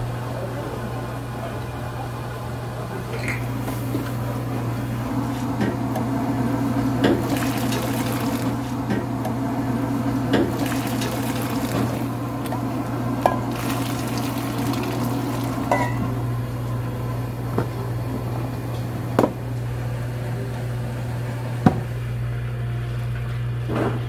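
Pork broth boiling hard in a wok while a metal ladle scoops and pours it into a bowl, with several sharp clinks of the ladle against the pan and bowl. A steady low hum runs underneath.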